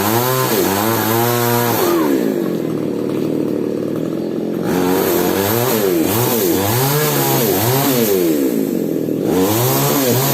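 Falcon mini chainsaw engine revving, its pitch rising and falling over and over, with a lower, steadier stretch in the first half.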